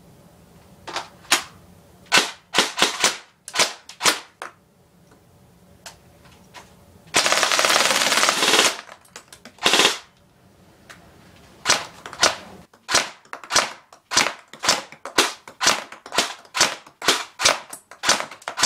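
Airsoft gun firing BBs: a scattering of single shots, then a sustained full-auto burst of about a second and a half about seven seconds in, then a long run of quick single shots at about three a second.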